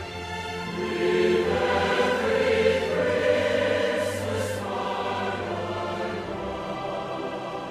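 Background choral music: a choir singing long held notes, swelling about a second in.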